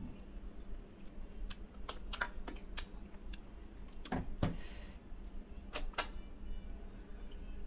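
Hand-eating sounds: fingers squeezing and mixing rice with mashed okra bhorta on a steel plate, making a string of small sticky, wet clicks, with a louder squish about four seconds in. A couple of sharp mouth clicks come as the handful goes into the mouth near the end.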